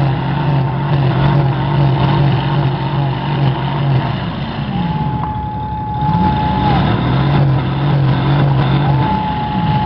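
Demolition-derby cars' V8 engines running hard and revving, the pitch dropping and climbing again in the middle between steady stretches. A steady high whine comes in twice, in the middle and near the end.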